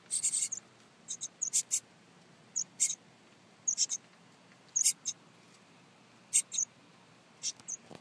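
Nestling birds inside a birdhouse peeping: thin, very high-pitched chirps in short clusters, coming irregularly about once a second.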